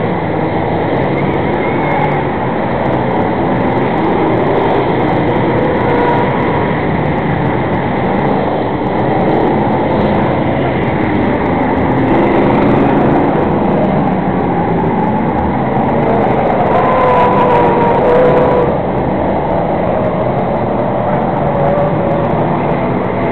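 A field of enduro stock cars racing around an oval, many engines running together in a steady, dense drone. It swells briefly with a slightly rising whine about three-quarters of the way through.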